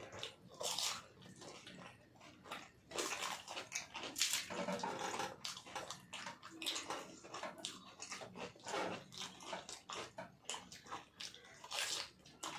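People eating with their mouths close to the microphone: wet, irregular chewing and slurping sounds.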